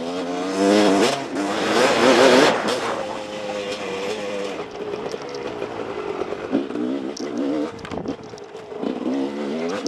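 Husqvarna WR 300 two-stroke single-cylinder dirt bike engine revving up and down as the rider works the throttle on a trail. It pulls hardest in the first few seconds with a rush of wind noise on the helmet microphone, then settles into lighter throttle blips.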